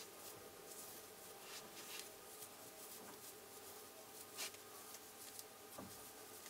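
Faint rustling and scratching of hair being twisted and pulled tight by hand, with one soft tap about four and a half seconds in.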